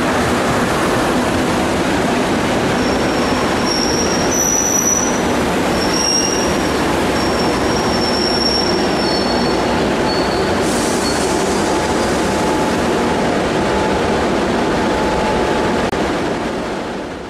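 Madrid Metro series 2000 train entering an underground station and slowing: a loud, steady rumble of wheels on rail, with high-pitched squeals from about 3 s in until about 10 s in. The sound fades away near the end.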